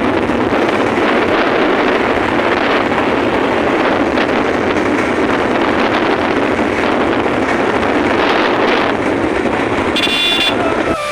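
Steady, loud rushing noise of a vehicle ride, with wind on the microphone and no clear engine note; a brief high tone sounds about ten seconds in.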